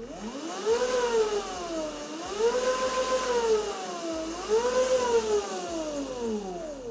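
Electric motor and drivetrain of a Tiger 1100W 36V electric dirt bike whining as the throttle is twisted: the pitch climbs and drops three times, then winds down as the throttle is let go near the end.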